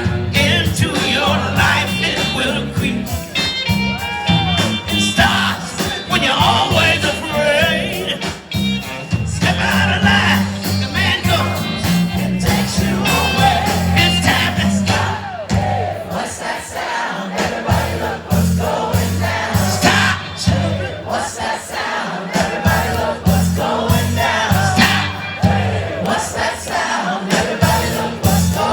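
Live band playing a soul-rock song, with a lead singer's voice over a steady bass line.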